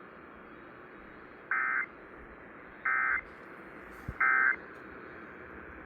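Emergency Alert System end-of-message code: three short warbling digital data bursts about a second and a third apart, sent by the broadcast station's EAS encoder to close the alert, over faint receiver hiss.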